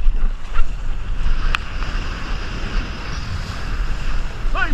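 Wind rumbling on the microphone over the wash of ocean surf and moving water, with one sharp click about a second and a half in.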